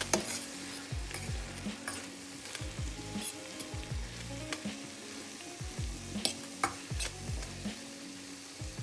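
Vegetables sizzling as they sauté in oil in a stainless-steel frying pan, stirred with a metal spoon that scrapes and taps against the pan many times.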